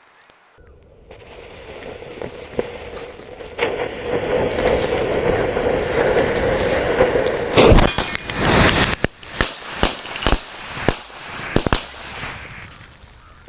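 Firecrackers set off around a GoPro. A crackling hiss builds for several seconds, then a burst of loud bangs comes about eight seconds in, followed by scattered sharp cracks.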